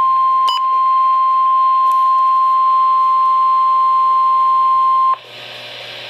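NOAA Weather Radio warning alarm tone, a single steady 1050 Hz beep through a Midland weather radio's speaker, signalling a severe thunderstorm warning. It lasts about five seconds and cuts off sharply, leaving a hiss of broadcast static.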